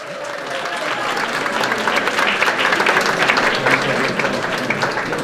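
A crowd of people applauding, the clapping building over the first second or two and then holding steady.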